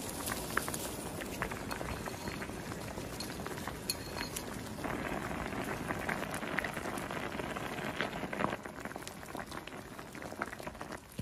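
Soup bubbling at a boil in a pot: a steady bubbling with many small pops, louder from about five seconds in and easing off near the end.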